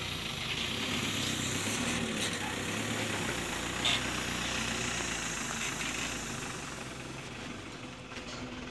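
Diesel engine of a loaded dump truck running at low revs as it creeps down a steep dirt slope, growing fainter after about six seconds.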